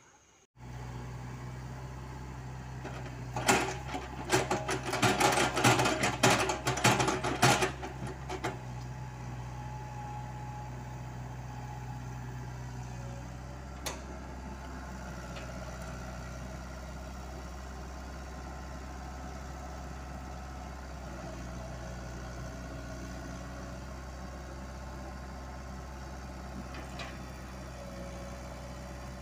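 Komatsu mini excavator's diesel engine running steadily. A few seconds in there are about five seconds of loud clattering and knocks, the bucket working in gravel, before the engine runs on alone.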